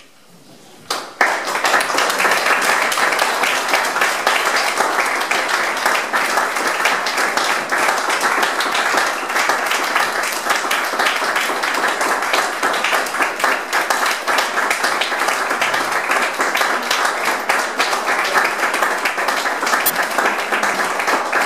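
Audience applauding: a dense, steady patter of many hands clapping that begins sharply about a second in, at the end of a song.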